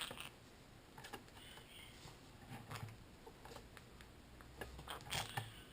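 Scattered light clicks and taps on a computer keyboard, with a few soft chirps from a green-cheeked conure.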